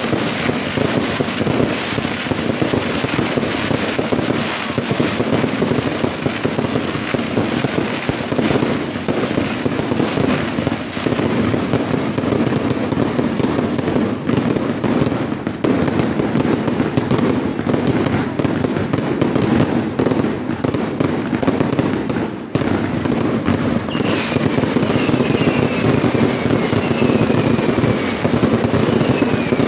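Fireworks in a dense, continuous barrage: aerial shells bursting and crackling stars popping so fast that the bangs run together. In the last few seconds several short falling whistles join in.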